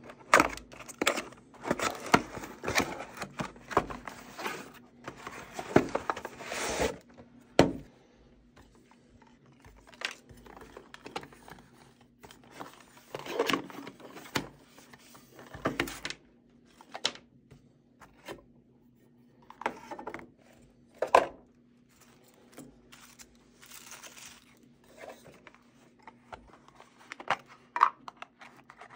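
Unpacking a camping cookware mess kit: the cardboard box is torn open and its packaging rustles steadily for the first seven seconds or so. After that come scattered clinks, knocks and rustles as the metal pots, mesh carry bag and small parts are handled.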